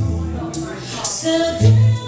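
Live band music with singing over the instruments and a steady beat.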